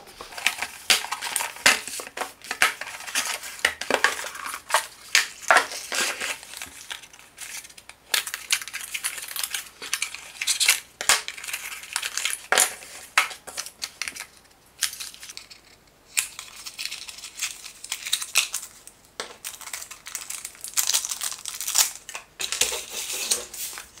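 A cardboard product box being opened and its packaging handled by hand: an irregular run of taps, scrapes and rustles, with a short lull about 15 seconds in.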